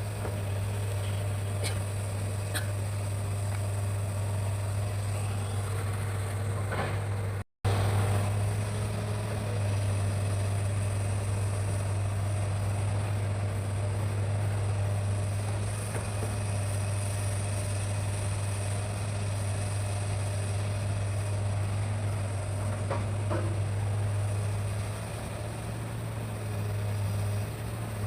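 Hitachi hydraulic excavator's diesel engine running steadily with a low drone, cutting out for an instant about seven and a half seconds in, with a few faint knocks from the work.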